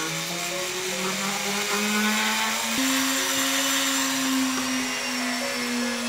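Jeweller's rotary tool (flex-shaft handpiece) running with a small abrasive bit on the silver knife handle, a steady whine with a hiss over it. Its pitch climbs over the first few seconds, steps up a little about three seconds in, and then holds steady.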